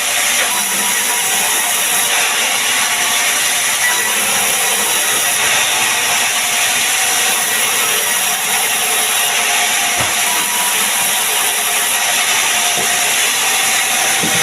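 Sawmill band saw cutting through a mahogany log, a steady, loud hiss of the blade in the wood.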